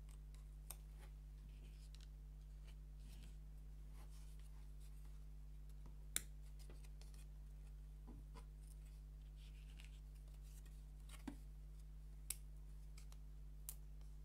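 Laser-cut plywood puzzle pieces being handled and fitted together: a few sharp light clicks and taps, the loudest about six seconds in, with soft rustling between. A steady low hum runs underneath.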